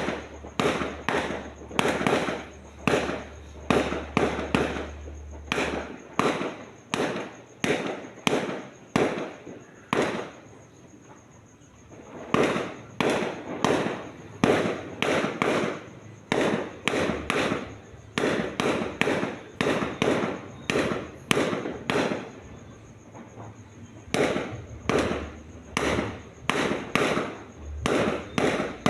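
Aerial fireworks going off in a rapid barrage, about two sharp bangs a second, with two short lulls.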